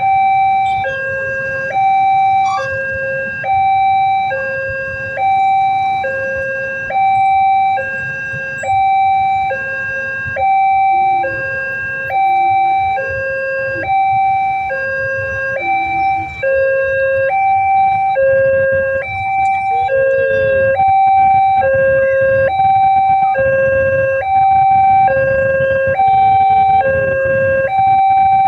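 Railway level-crossing warning siren sounding a two-tone hi-lo wail, switching between a higher and a lower tone a little less than once a second in an even, repeating pattern. A low rumble runs underneath and grows louder about two-thirds of the way through.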